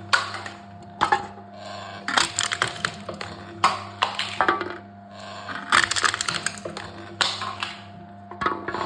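Aluminium cans being crushed in a can-crushing machine: a series of crackling, crunching bursts of crumpling metal, roughly one every second or so.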